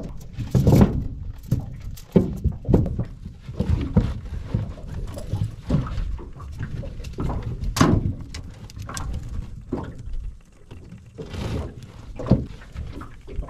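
Irregular knocks and clatter of a collapsible crab pot's wire frame and mud crabs being handled on the floor of an aluminium boat, with one sharper knock near the middle.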